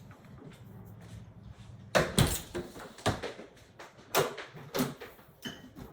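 Knocks and rustling as a boxed printer and its packaging are handled during unpacking: a pair of loud knocks about two seconds in, then more knocks and scraping around four to five seconds. A low hum runs underneath for the first two seconds.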